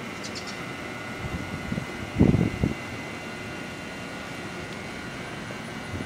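Steady outdoor mechanical hum with a few faint high steady tones. About two seconds in, a brief cluster of low rumbling thumps is the loudest sound.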